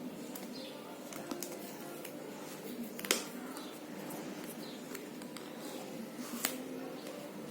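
Cardboard packaging of a sunglasses box being handled and opened: scattered light clicks and rustles, with a sharper click about three seconds in and another about six and a half seconds in.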